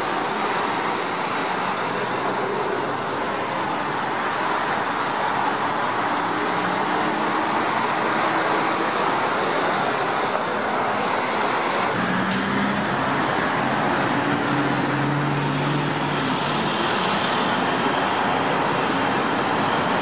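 Steady highway traffic noise with the hum of heavy engines running. Two brief clicks about two seconds apart midway.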